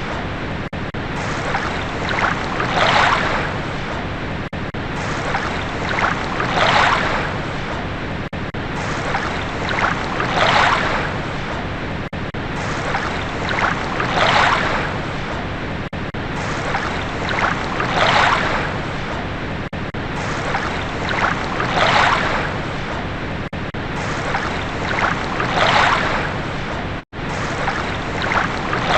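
Waves washing in, a steady rush of water that swells about every four seconds. The sound cuts out for an instant near the end.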